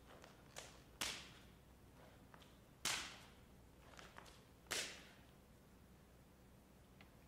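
Sharp percussive strikes from dancers performing without music: four loud cracks, each with a short echoing tail, and a few fainter taps between them.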